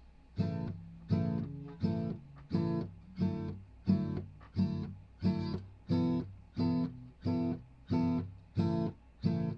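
Guitar strummed in a steady rhythm, one chord stroke about every 0.7 seconds, each ringing and fading before the next, with a few chord changes along the way.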